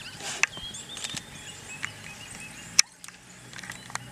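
High-pitched chirping and twittering calls, typical of African wild dogs in a pack. A few sharp clicks are heard, the loudest about three quarters of the way through.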